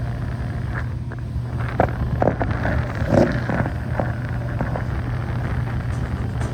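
Outdoor central air-conditioning condenser unit running with a steady low hum, with a few faint clicks and rustles.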